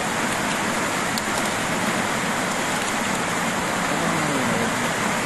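Water pouring steadily over a small concrete spillway into a shallow canal.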